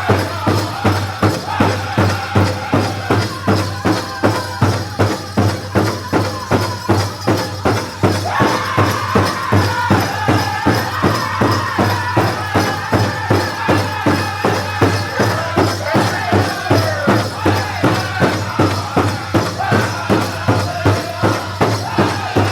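Powwow drum group singing a dance song over a steady beat on the big drum, about two to three beats a second. The voices jump to a higher, louder stretch about eight seconds in.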